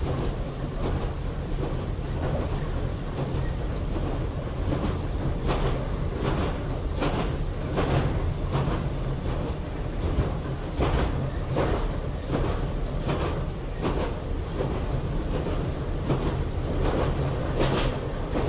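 Running sound inside the Kanbara Railway electric railcar Moha 31 under way: a steady low hum and rumble, with the wheels clacking over rail joints every second or so.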